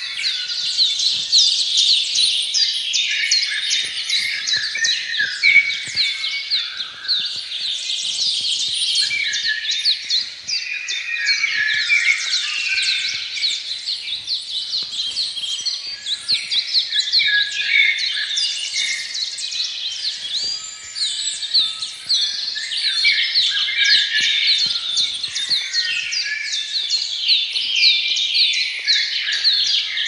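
Dense chorus of many small birds chirping and twittering at once, a continuous overlapping mass of short, quick notes.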